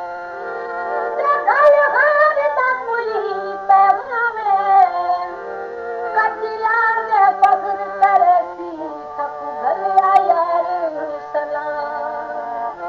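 Old Punjabi folk singing from a cassette recording: a high solo voice holds long, wavering notes and slides between them over a low, steady accompaniment, with a few sharp clicks.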